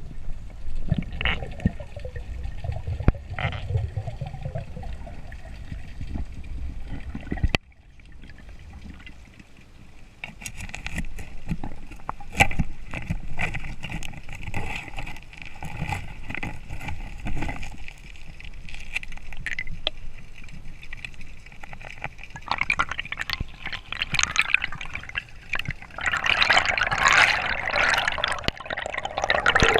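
Water bubbling and sloshing around a camera in the water, with many scattered sharp clicks. There is a sudden drop about a third of the way in, and a dense stretch of bubbling near the end.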